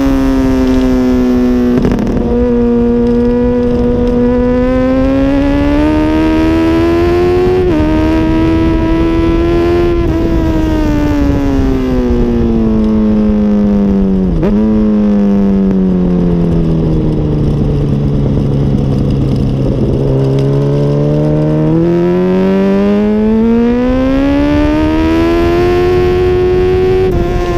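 2006 Honda CBR1000RR's inline-four engine at speed, its note sinking slowly as the bike slows and climbing again under throttle, with sudden steps in pitch three times, about a quarter, half and four-fifths of the way through. Wind rush runs underneath.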